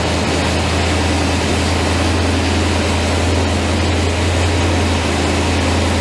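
Ford 351 Windsor V8 with a four-barrel carburettor idling steadily, a constant low hum with no revving.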